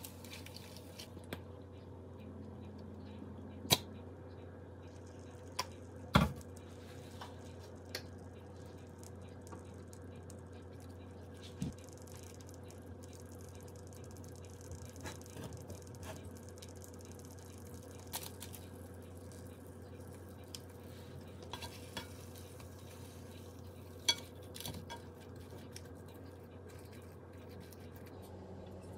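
A wooden spatula and a metal fork tapping and scraping against a frying pan as food is worked and folded in it: scattered light clicks and knocks, the sharpest about 4 and 6 seconds in, over a faint sizzle and a steady low hum.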